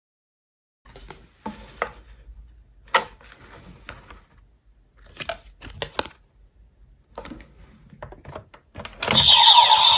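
Plastic clicks, taps and card-sliding noises as cards are handled and slotted into a plastic DX toy transformation belt. About nine seconds in, the toy's loud electronic sound effect starts playing from its speaker.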